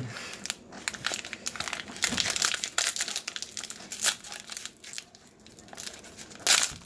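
Trading card pack wrapper crinkling as it is handled and opened, with cards rustling, a run of quick crackles with the loudest near the end.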